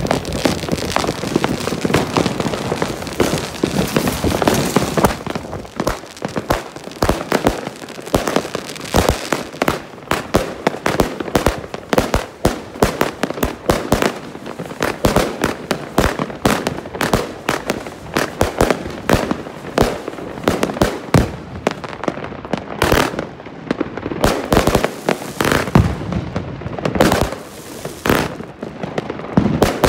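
Evolution Fireworks Dragon Box 3, a 100-shot compound firework cake, firing: a continuous volley of launches and bursts, several sharp bangs a second.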